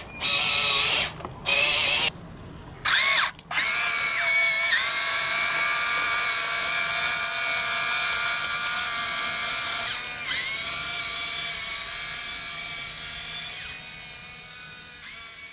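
Electric drive motors and gearboxes of a Huina 1594 RC excavator whining as it drives on its tracks. A few short bursts come first, then from about three and a half seconds in one long steady run, dipping briefly near the middle and fading near the end.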